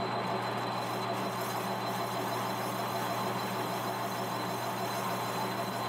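Manual metal lathe running steadily, with a constant hum and a thin high whine.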